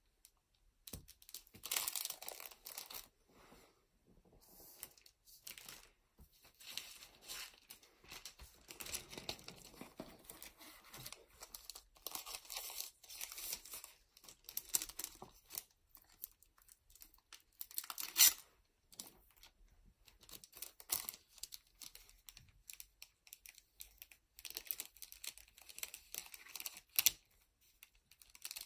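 Clear plastic hanger bags and foil booster packs crinkling in irregular crackly bursts as the packs are slipped into the bags and the bags are sealed. There are occasional sharper tearing or peeling sounds, the loudest about eighteen seconds in.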